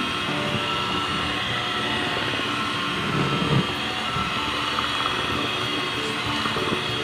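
Electric hand mixer running steadily, its beaters whipping a thick avocado ice cream mixture in a bowl.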